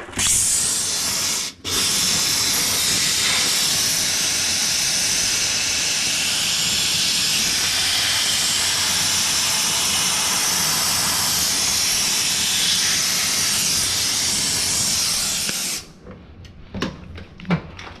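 Handheld steam cleaner blasting a steady hiss of steam onto a refrigerator's evaporator coil to defrost it, with a brief cut-out about one and a half seconds in. The steam stops near the end, followed by a few knocks and clicks.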